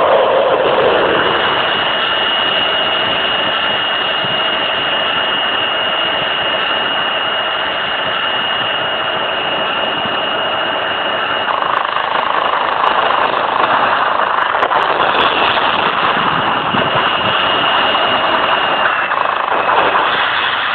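F-16 fighter jet engine running: a steady high whine over a broad rushing noise, the whine dipping slightly in pitch near the end.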